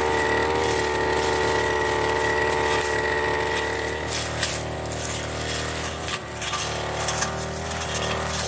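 Backpack brush cutter engine running at high throttle with a steady high note. About four seconds in, the note weakens and turns uneven as the cutting head works into thick cogon grass, with scattered clicks and rattles from stems and debris striking it.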